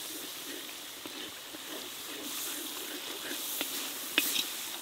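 Spice paste frying in hot oil in a large kadai, with a steady sizzle and bubble. A spatula scrapes and knocks against the pan a couple of times near the end.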